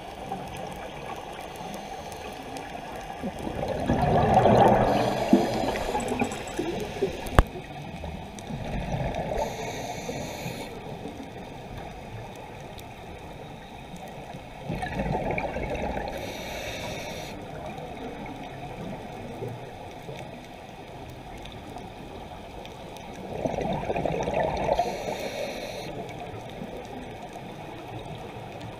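Underwater sound of a scuba diver breathing through a regulator: three bursts of exhaled bubbles about ten seconds apart over a steady low underwater background. A single sharp click comes about seven seconds in.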